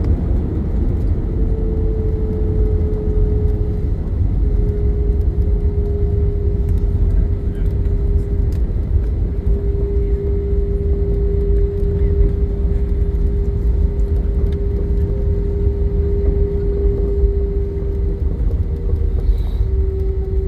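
Passenger-jet cabin noise: a steady, loud low rumble with a constant droning hum that shifts slightly in pitch a couple of times.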